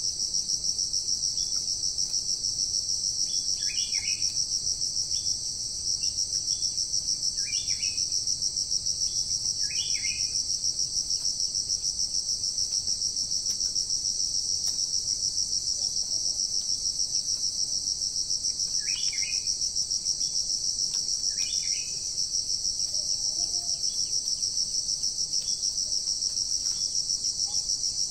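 Steady, high-pitched insect chorus with a fast pulsing trill, with about five short bird calls scattered over it.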